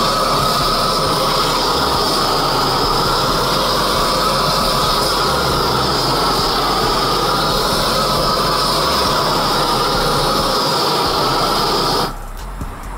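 Propane torch burning at full flame with a loud, steady rushing hiss as it sears sauced ribs on a grill grate. The sound cuts off suddenly near the end.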